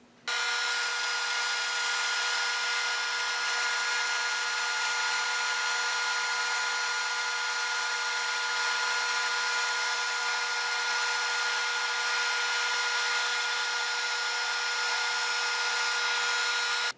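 Band saw running and slicing through a block of UHMW (ultra-high-molecular-weight polyethylene) plastic: a steady sawing noise with a constant hum that starts and stops abruptly.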